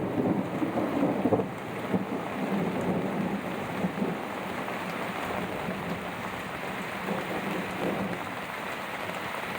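Heavy rain falling steadily on and around a boat, a little louder in the first second or so.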